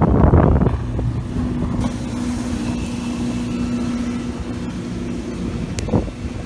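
Motorboat engine running with a steady drone over wind and water noise, with heavy wind buffeting on the microphone in the first second. A short knock sounds near the end.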